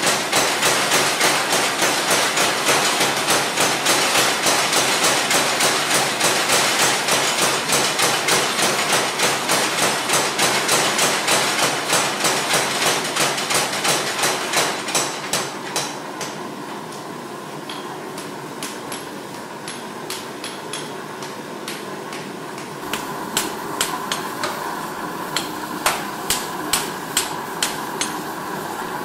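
Mechanical power hammer pounding red-hot knife steel in quick, even blows, about four a second, which stop about halfway through. After a quieter stretch, scattered single blows of a hand hammer ring out on the blade at the anvil.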